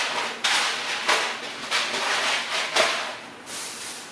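Small cardboard boxes of macaroni and cheese being set down one after another on a floor mat: a quick series of dry knocks and rustles, quieter near the end.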